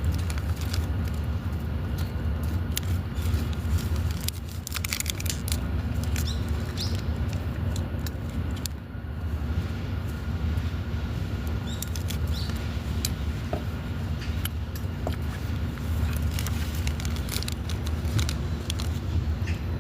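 Outdoor background with a steady low rumble and many scattered short clicks and taps.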